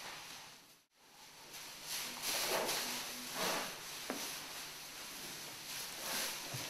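Holstein-Friesian heifers moving about on deep straw bedding: hooves shuffling and rustling through the straw, louder at a few moments. The sound drops out briefly about a second in.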